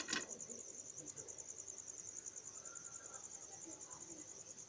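Chicken nuggets frying in a pan of hot oil with a faint steady sizzle, under a steady high-pitched cricket-like trill of about a dozen pulses a second. A short click comes right at the start.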